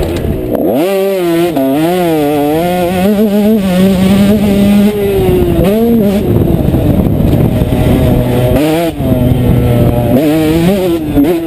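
Motocross bike engine heard close from the bike itself, revving up and down as the rider works the throttle around the track. The pitch climbs sharply right at the start, wavers quickly for the next few seconds, holds steadier, then drops briefly about nine seconds in before climbing again.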